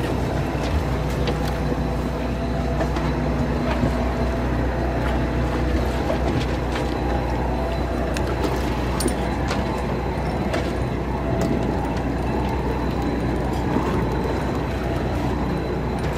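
A fishing boat's engine runs with a steady low drone and hum, with a few sharp clicks scattered through it.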